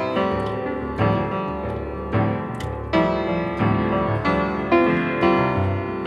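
Slow, gentle piano music, with notes and chords struck roughly once a second.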